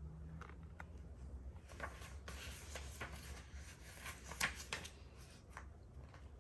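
Paper rustling and handling, as when the pages of a book are turned, with small scattered clicks and one sharper click about four and a half seconds in.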